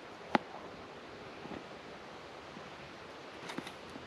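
Knife slicing a bell pepper on a small plastic cutting board, with one sharp tap of the blade on the board about a third of a second in and a few softer cuts later, over a steady background hiss.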